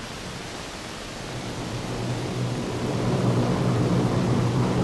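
Steady low drone of an LC-130 Hercules' four turboprop engines in flight, growing louder about two seconds in over a rushing hiss.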